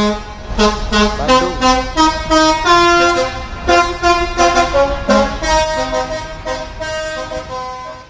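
Multi-tone 'telolet basuri' bus air horn playing a quick melody of short, stepping notes over a low rumble.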